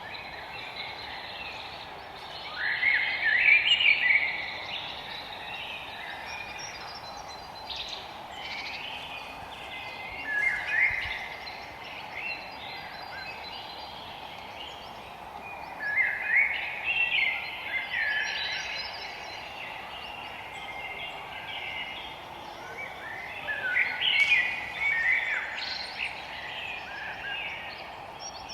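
Forest songbirds singing: a bird gives a short phrase of quick chirps about every six to eight seconds, four phrases in all, over a steady background hiss.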